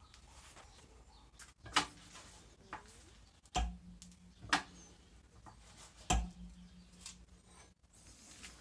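Metal tools and parts clanking against the steel table of a slot mortising machine: four sharp knocks, two of them followed by a short low ring.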